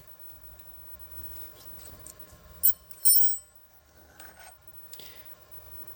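A sharp metal click a little over two and a half seconds in, then a short ringing metallic clink, as a workholding clamp on the milling machine is loosened and slipped off, over a faint steady hum.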